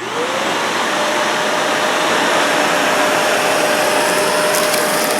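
Shark Navigator Lift-Away upright vacuum cleaner just switched on. Its motor spins up with a rising whine over the first half second, then runs steadily with a loud rush of air and a steady whine. A few light clicks come near the end.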